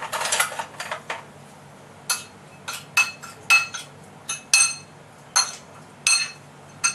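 Spoon clinking and scraping against a ceramic bowl while stirring a seasoning sauce. A quick clatter of taps in the first second, then single ringing clinks at uneven intervals of roughly half a second to a second.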